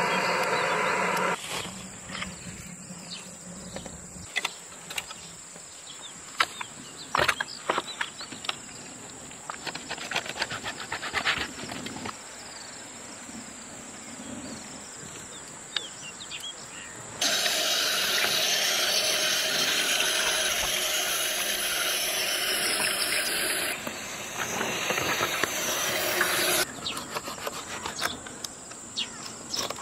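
A knife clicking and scraping on a whole flounder on a wooden cutting board, many short sharp sounds. Then a loud, steady hiss starts abruptly, runs for about ten seconds and cuts off.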